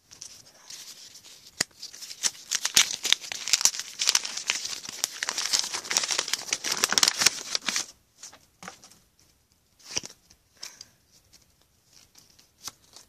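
Match Attax football card pack wrapper being torn open and crinkled close to the microphone: a dense crackling rustle full of sharp clicks for about the first eight seconds. After that, only scattered short rustles and taps of handling.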